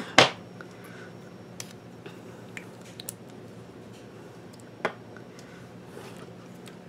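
Small clicks and handling noises close to the microphone, the sharpest just after the start and a few fainter ones spread through the rest, over a steady low hum.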